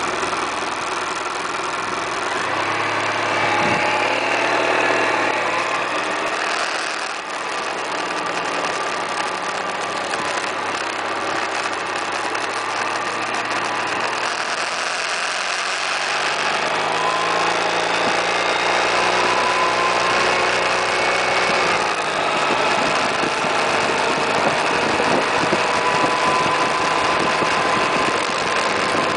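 Suzuki Burgman 650 maxi-scooter's parallel-twin engine running on the move, its pitch rising and falling several times as the bike speeds up and slows. A steady rush of wind and road noise runs underneath.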